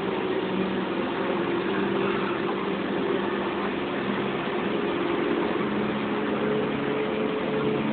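Tour tram's engine running steadily as it rolls along, a continuous mechanical drone whose hum drops a little in pitch past the middle.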